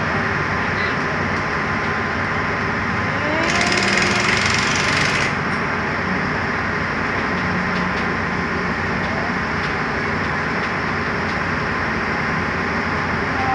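Railway track-laying machine running at work, a steady mechanical engine drone. About three and a half seconds in, a burst of hissing lasts nearly two seconds.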